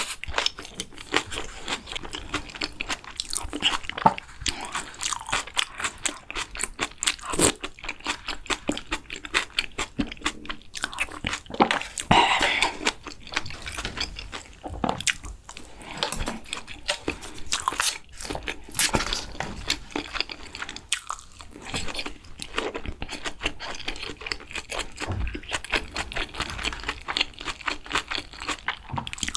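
Close-miked eating: continuous chewing with many crisp crunching clicks, several each second.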